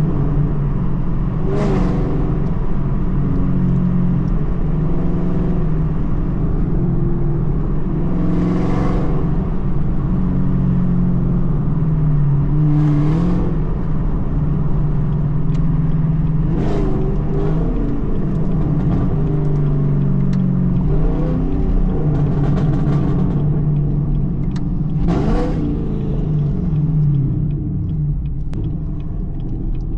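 Car engine, plausibly the Mustang GT's 5.0 V8, running steadily under way, with about five brief surges of revs.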